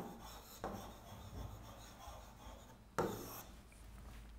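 Pen strokes rubbing and scratching across a writing board as a word is written, with sharp starts about half a second in and again about three seconds in.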